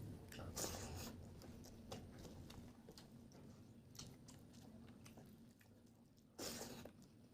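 Faint chewing and wet mouth sounds of someone eating, with small scattered clicks and two brief louder bursts, one just after the start and one near the end.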